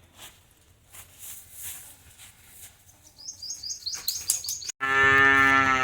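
A small bird chirping in a quick run of short, high, falling notes about three seconds in. After a brief dropout, a cow moos loudly near the end in one long call that drops in pitch as it ends.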